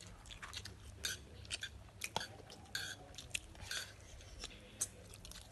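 People eating rice and brown stew chicken: chewing, with scattered light clicks of a spoon in a bowl.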